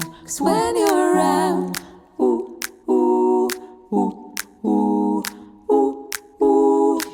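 Background music: a wordless sung or hummed vocal line in held notes, with a light click keeping the beat.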